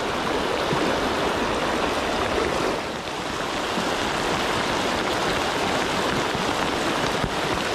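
Heavy rain pouring onto a flowing river, a steady dense hiss of rain hitting the water mixed with the running current.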